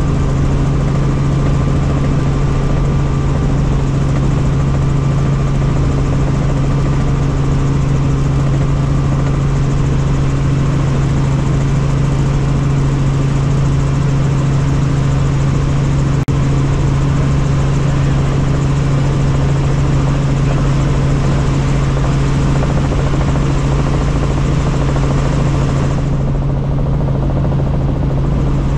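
Helicopter engine and rotors running steadily in flight, heard from inside the cabin: a constant low hum with an even rushing noise over it. The higher hiss drops away about four-fifths of the way through.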